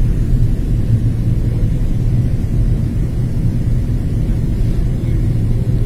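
Jet airliner cabin noise heard from a window seat in flight: a steady low rumble of engines and airflow.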